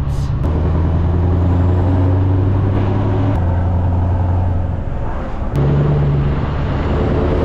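Heavy lorry's diesel engine running steadily under way, a deep drone whose pitch drops and rises in a few sudden steps.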